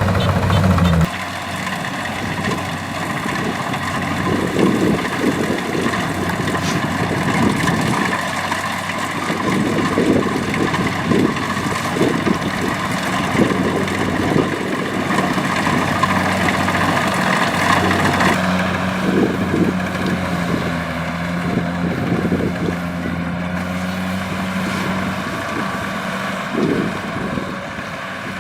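Kubota DC-70 combine harvester running steadily while harvesting rice, its diesel engine and threshing machinery making a continuous mechanical drone. The sound changes abruptly about a second in.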